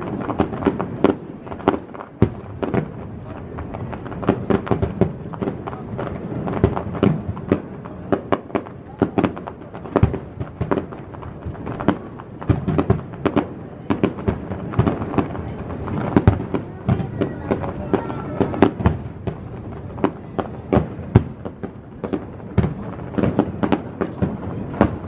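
Aerial fireworks shells bursting one after another, a dense run of sharp bangs coming irregularly, often several a second.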